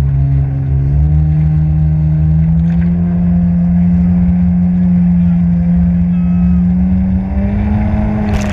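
Jet ski engine running under throttle over a heavy low rumble. Its pitch climbs about a second in, holds steady, climbs again near the end, then drops suddenly.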